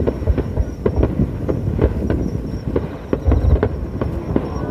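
Aerial firework shells bursting: a rapid string of sharp bangs and crackles over a low rumbling boom, heaviest about three and a half seconds in.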